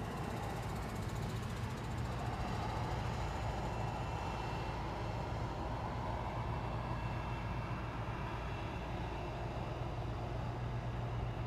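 Steady low hum with a rushing noise, typical of a vehicle running, that swells for several seconds in the middle.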